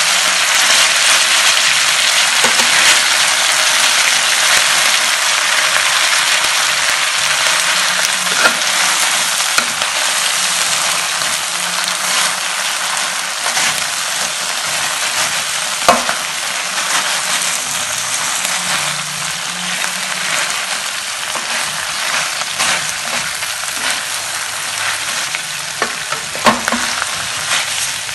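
Sliced cow tongue and greens sizzling in a steel wok as a metal ladle stirs and tosses them. The steady frying hiss eases slightly over time, broken by a few sharp clinks of the ladle against the pan, the clearest about halfway through and near the end.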